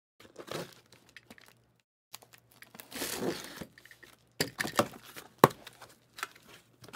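Cardboard and packing tape being torn and crinkled as a sealed case of trading-card boxes is opened: a long tearing rasp about three seconds in, then a run of sharp cardboard clicks and knocks, the loudest one near the end.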